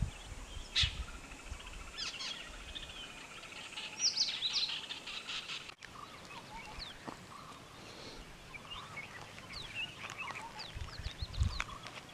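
Wild birds calling: many short chirps and whistled notes, some sliding in pitch, scattered throughout. A few low thumps near the end.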